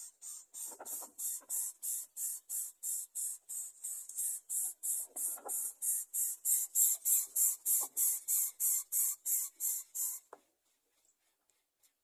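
Greater coucal nestlings hissing in a fast, even rhythm, about three hisses a second, stopping suddenly about ten seconds in.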